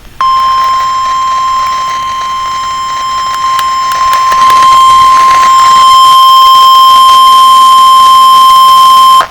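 NOAA Weather Radio 1050 Hz warning alarm tone: a single steady, loud tone held for about nine seconds, then cut off. It announces that a severe thunderstorm warning is about to be read.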